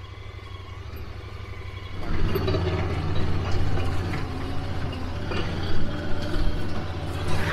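Side-by-side UTV engine running, a steady low hum that gets louder about two seconds in as the machine gets going, with a few knocks and rattles from the ride.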